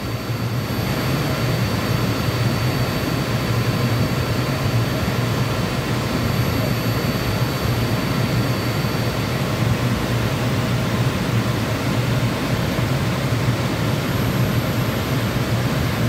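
Steady roar of a running Liebert DS computer-room air conditioner, its blower fan at full speed, with a low hum under the rushing air. A faint high-pitched tone fades out about ten seconds in.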